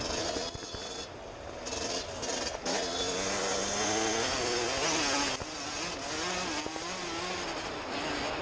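Suzuki RM125's single-cylinder two-stroke engine being ridden hard: revs climb a few seconds in, hold high, then drop sharply and waver as the rider rolls off and back on the throttle.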